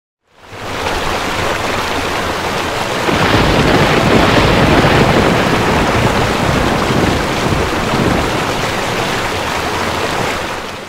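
Heavy rain storm sound effect: a loud, steady hiss of rain fading in, with a deep rumble swelling about three seconds in and easing off near the end.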